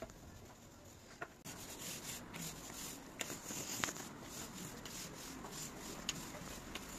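Paint roller rolling wet patio paint across paving slabs: a steady rough rubbing that picks up about a second and a half in, with a few light clicks.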